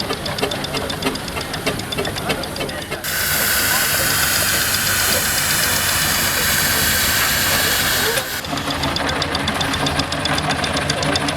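A traction engine letting off steam in a loud hiss that starts suddenly about three seconds in and cuts off about five seconds later. Before and after it, a fast, even mechanical ticking is heard.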